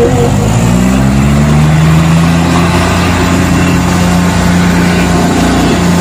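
Diesel tractor engines running flat out under heavy load in a tug-of-war pull. The pitch rises over about the first second, then holds steady.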